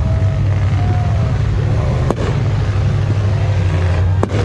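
Off-road race vehicle engines running with a steady, loud low rumble over crowd chatter, with two sharp knocks, about two seconds in and again near the end.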